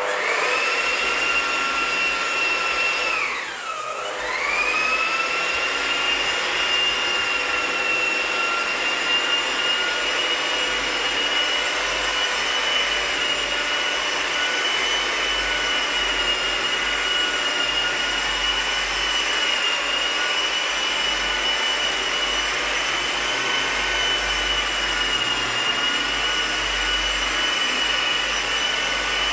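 Asian Paints handheld wall sanding machine, a round-pad putty sander, running as it sands dry wall putty, with a steady high motor whine. About three seconds in, the pitch briefly sags and then climbs back.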